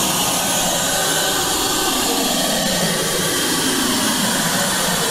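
Steady rushing hiss of a candy prize machine's vacuum suction head holding a swirl lollipop while the gantry carries it to the prize chute. A faint motor whine falls in pitch, then rises again.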